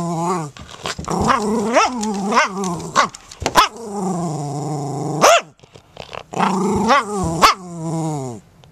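Jack Russell terrier barking through a tennis ball held in its mouth: long, rising growl-like calls broken by short, choked barks, muffled by the ball. A short pause comes a little past halfway, and the calls die away near the end.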